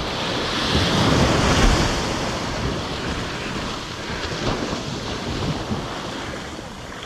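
Ocean waves washing, with wind buffeting the microphone. The wash is at its loudest about a second in and then eases off.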